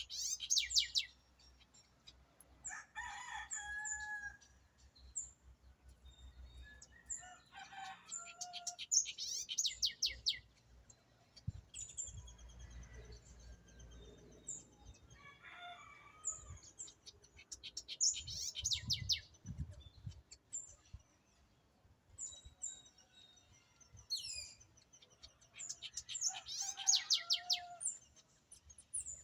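Birds singing and chirping: a rapid high trill comes back about every nine seconds, with scattered short chirps and lower calls in between.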